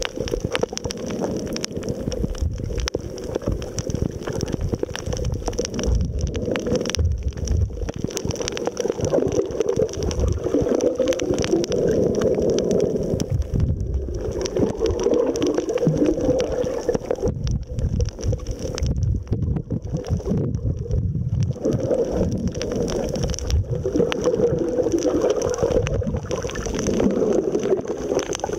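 Muffled underwater noise picked up by a camera held underwater while snorkeling: water sloshing and gurgling that swells and fades every few seconds, with many brief crackling clicks.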